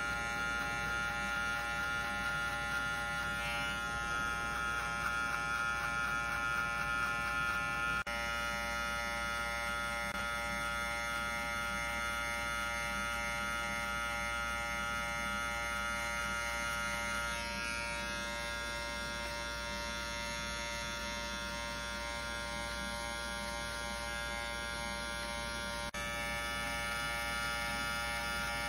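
Electric hair clippers running with a steady buzz while cutting short hair at the sides and back of the head.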